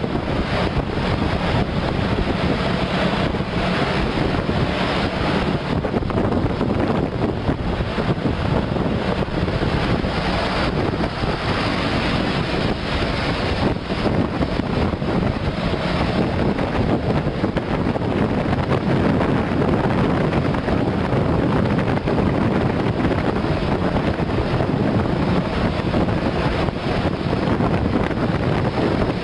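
Wind buffeting the microphone over the steady rush of road noise from moving traffic.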